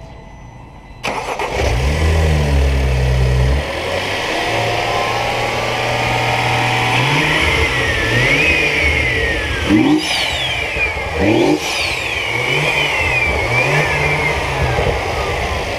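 2013 BMW 135i's 3.0-litre turbocharged inline-six starting about a second in, flaring briefly and settling to idle, then revved up and down several times with a high whine rising and falling with the revs.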